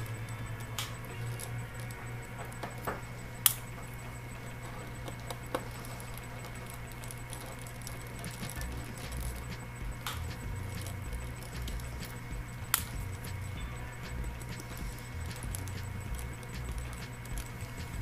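A few sharp clicks and small taps of a precision screwdriver working screws on the metal back of a Microsoft Surface RT tablet, over a steady low hum.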